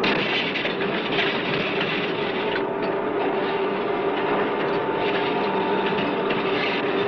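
Steady, dense mechanical noise from a science-fiction film soundtrack, a continuous hiss and clatter over a constant low hum. A higher steady tone joins it about two and a half seconds in and fades out near the six-second mark.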